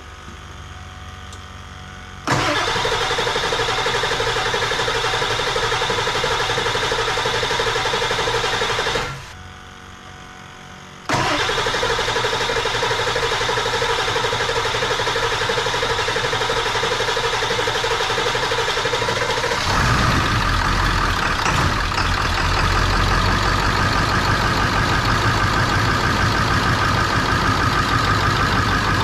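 Ford 7.3 Powerstroke V8 turbo-diesel being cranked over on the starter in two long runs with a short pause between, a steady whirring drone; about twenty seconds in it fires and settles into a louder, deeper steady running sound. The long cranking is the slow first start after an injector replacement.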